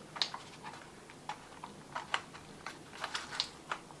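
Irregular light clicks and taps of hands working the plastic chassis parts and wiring of a Redcat MT10E RC monster truck, trying to lift off a part.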